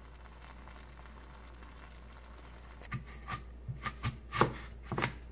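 Kitchen knife cutting through a whole apple on a cutting board: a run of crisp cracks and knocks starting about three seconds in, the loudest about a second and a half later. Before that, only a low steady hum.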